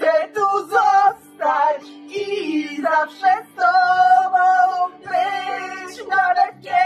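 Two women singing a song together in sung phrases, with a long held note around the middle.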